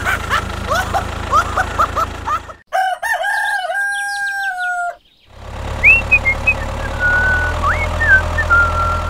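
A rooster crows once, a long call about three seconds in lasting roughly two seconds. Before and after it runs a steady low hum with short high chirps over it.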